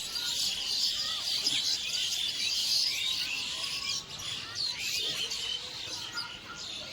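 A chorus of many birds chirping and twittering at once, thickest over the first few seconds and thinning out after about four seconds.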